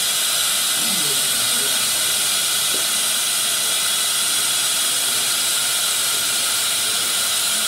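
Dental high-volume suction tip held at the teeth, drawing air with a constant hiss as it clears the plume from diode-laser gum recontouring.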